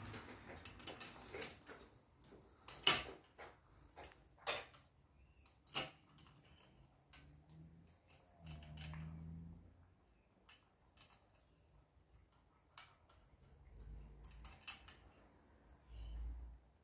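Cat eating from a stainless steel bowl: irregular sharp clicks and crunches of food and teeth against the bowl, loudest in the first six seconds. A few soft low thumps come in between.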